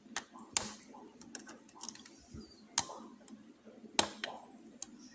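Lock picking: metal pick and tension wrench clicking against the pins inside a lock's keyway, in sharp, irregular clicks. The three loudest come about half a second, nearly three seconds and four seconds in.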